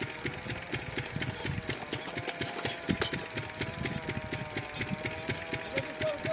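Small engine running steadily with a fast, even chugging beat and a steady hum. Five quick high chirps come near the end.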